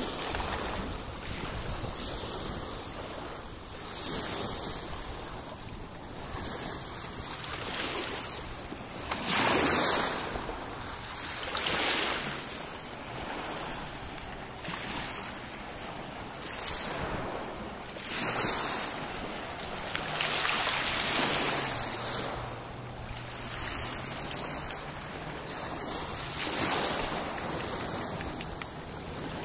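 Shallow sea water lapping and splashing around a swimming dog, with wind gusting on the microphone in several louder whooshes.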